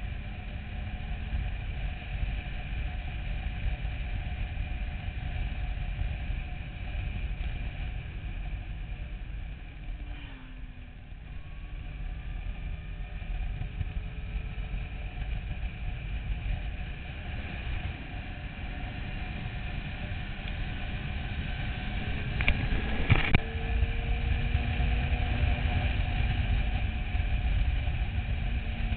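Motorcycle under way: wind rush over the microphone with the engine's note underneath. The engine eases off about ten seconds in, then rises in pitch as it accelerates, and again about twenty-two seconds in, when it gets louder and a couple of sharp knocks are heard.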